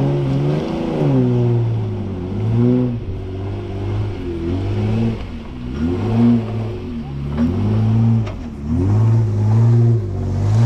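A four-wheel-drive's engine being revved up and dropped back over and over, its pitch rising and falling in several short swells.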